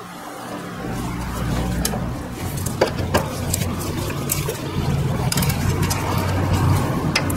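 Low, steady engine rumble of a motor vehicle running, starting about a second in. Over it come scattered sharp metallic clicks and scrapes as a flat screwdriver levers against a scooter's rear shock-absorber mount to line up the bolt hole.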